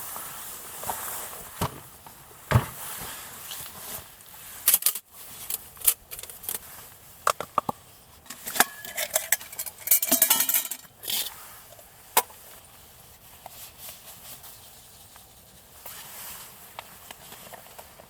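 Camp cookware and utensils being handled: scattered clinks, knocks and scrapes, with a quick run of them about two-thirds of the way through, over a faint steady hiss.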